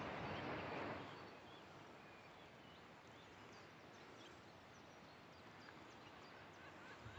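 Quiet outdoor ambience with faint, scattered chirps of small birds in the distance. A soft rush of noise fills the first second and then drops away.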